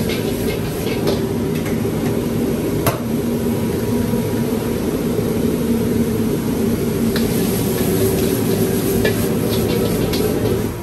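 Commercial wok burner running with a steady roar under a wok of food being stir-fried, with sizzling and the metal ladle clinking and scraping against the wok every so often, one sharp clank about three seconds in.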